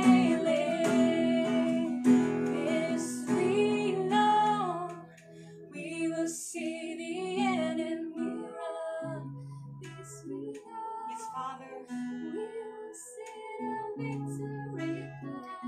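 Two women's voices singing a worship song to an acoustic guitar. The singing is full for the first five seconds or so, then drops to a softer, quieter passage over the guitar.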